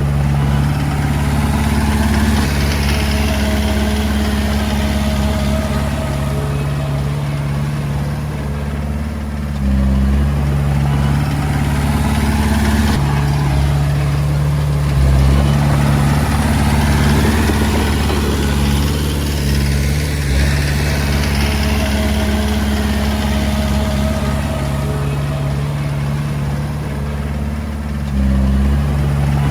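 Diesel engine of a Komatsu D20A bulldozer running steadily while working, its note shifting up and down a few times as the load changes.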